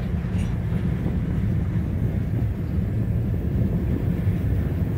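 Freight train of tank cars and covered hoppers rolling past at close range: a steady low rumble, with wind buffeting the microphone.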